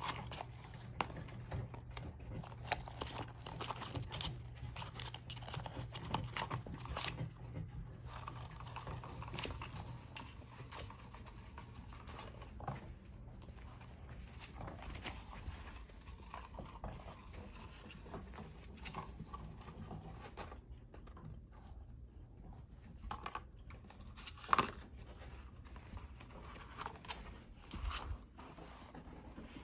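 A puppy chewing and tearing at a cardboard toilet paper tube to get at a treat inside: irregular crackling, ripping and clicking of cardboard, with one louder sharp click about two-thirds of the way through.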